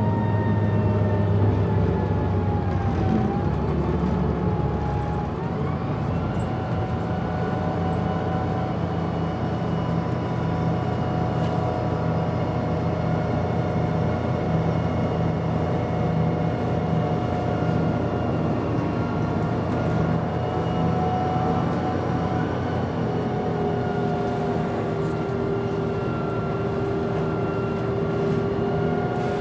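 Steady drone of a moving city bus heard from inside the passenger cabin: a low rumble with faint whining tones that slowly shift in pitch as it drives.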